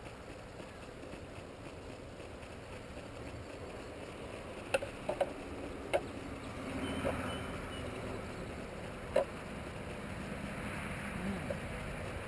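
Steady low outdoor rumble with several sharp knocks and clicks, a cluster of them about halfway through and one more a few seconds later.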